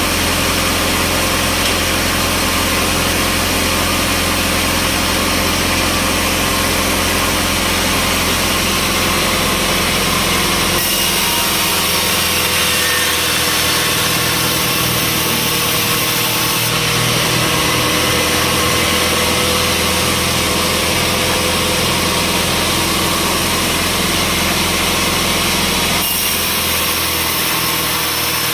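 Sawmill engine running steadily at a constant speed, its tone changing abruptly about a third of the way in and again near the end.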